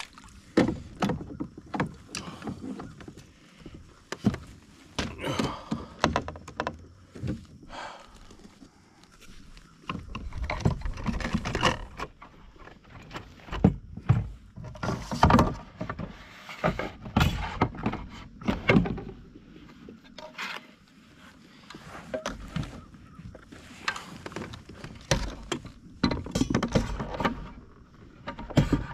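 Irregular knocks, clunks and rattles of gear being handled aboard a kayak, denser and louder in the middle and near the end.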